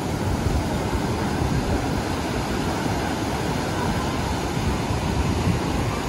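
Rough sea surf breaking and washing in over the shallows of a sandy beach: a steady, unbroken rush of churning water with a deep rumble.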